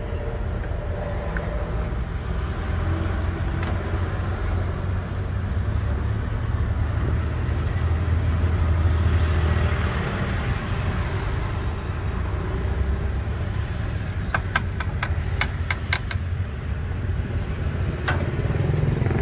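Steady rumble of road traffic passing close by, swelling as a vehicle goes past about halfway through. A quick run of light clinks comes near the end.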